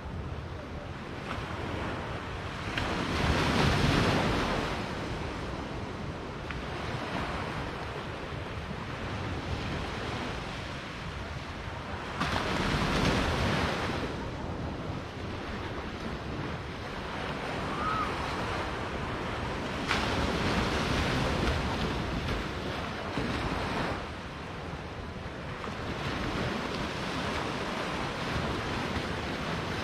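Small waves breaking and washing up on a sandy shore, a steady wash that swells louder every eight to ten seconds as each wave comes in.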